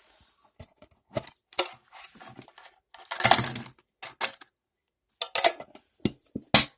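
Small metal toy tin being opened and its contents handled: a string of sharp clicks and light knocks, with one longer, louder clatter about three seconds in.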